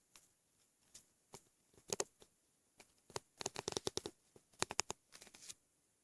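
Belly full of milk making stomach noises: quick runs of small crackling pops and clicks as air bubbles shift inside, one short cluster about two seconds in and a denser run from about three to five and a half seconds in.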